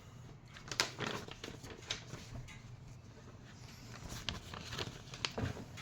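Faint handling noises: scattered light clicks and rustling as packaging and items are handled.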